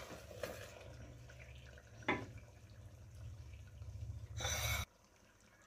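Metal ladle stirring thick curry gravy in a steel pot: faint wet stirring with a clink about two seconds in and a short scrape near the end, over a low steady hum that cuts off suddenly.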